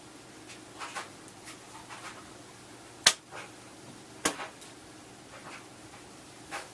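Handling noises from a fiberglass takedown recurve bow being turned over and examined: two sharp clicks a little over a second apart near the middle, with a few faint rustles.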